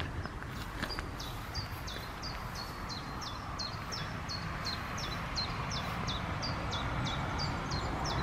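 A small songbird singing a long run of short, high, falling notes, about three a second, over a steady outdoor hiss.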